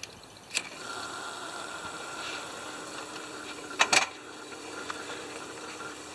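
Garden hose being coupled to a pressure washer's pump inlet: a click, then water running through with a steady hiss and a faint whistle from about a second in, and two sharp clicks close together about four seconds in.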